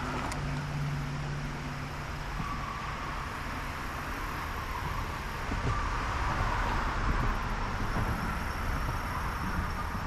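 Shallow creek water running steadily over rocks, with a low rumble underneath.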